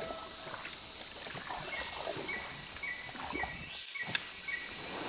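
Small boat being paddled along a rainforest river, with the splash and knock of the paddle strokes, over a steady high insect hiss. From about two seconds in, a short call repeats about three times a second; after a cut near four seconds, the insect hiss goes on.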